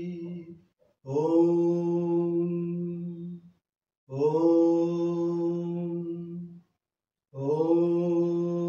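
A man chanting long, held "Om" tones at one steady pitch, each about two and a half seconds with a brief pause for breath between: the repeated chant of udgeeth pranayama.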